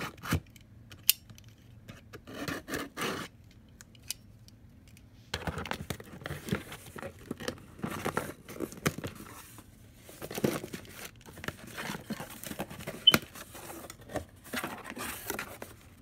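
Cardboard shipping box being opened: a few clicks and short scratchy cuts as a utility knife slits the packing tape, a quiet pause, then from about five seconds in a long run of packing tape tearing and cardboard flaps scraping and being pulled open, with paper rustling.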